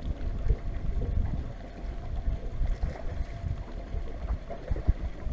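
Wind buffeting the microphone on a small boat on open water: a low rumble with irregular thumps, and a faint steady hum underneath.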